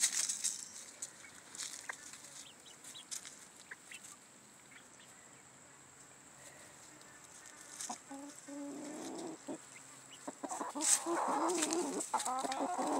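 Chicken feed poured from a glass jar patters onto dry leaves at the start. From about eight seconds in, chickens cluck in repeated bouts, growing louder near the end.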